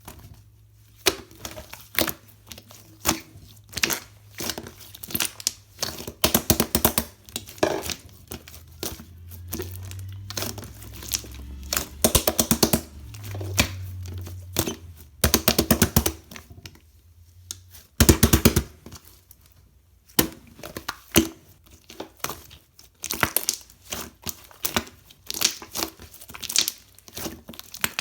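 Slime being squished and pressed by hand: bursts of many small, sharp pops and crackles with short pauses between them.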